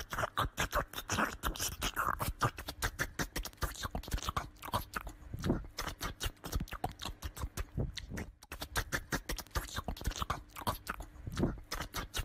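A small dog's paws and claws scratching and tapping rapidly at a wooden door, a fast, uneven run of clicks and scrapes, several a second.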